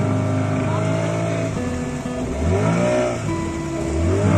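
Background music: held notes that shift to new pitches about a second and a half in and again past three seconds, with gliding tones in between.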